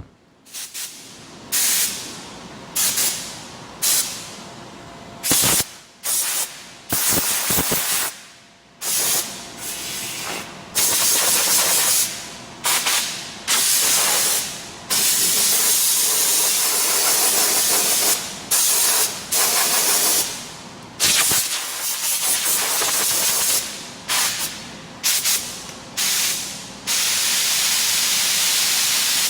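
Compressed-air blow gun blasting air in repeated bursts of loud hissing. The bursts start abruptly and tail off; some last under a second and others run for several seconds.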